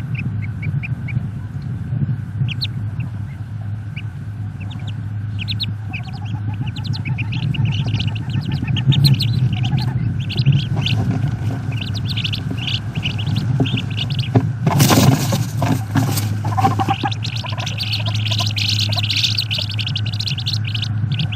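Wood duckling peeps: many short, high calls that grow denser after the first few seconds, over a steady low electrical hum. About two thirds of the way through, a loud rushing noise lasts a second or two.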